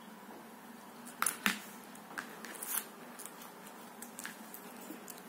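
Small metal clicks and taps from handling a precision screwdriver set: the metal handle and bits knocking together and against the leather wallet's clips, in scattered single clicks with the loudest pair about a second and a half in.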